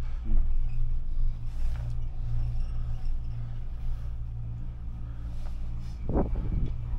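Steady low hum and rumble of a ride on a Doppelmayr detachable eight-seat chairlift with its bubble canopy closed. A short pitched sound rises and falls about six seconds in.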